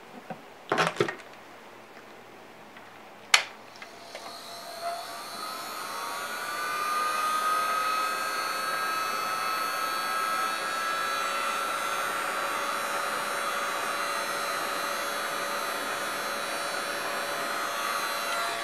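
Handheld heat gun blowing hot air to fuse a layer of encaustic wax. It starts about four seconds in and spins up over a few seconds into a steady whirring blow with a whine that rises a little at first. Before it, two soft knocks about a second in and a sharp click.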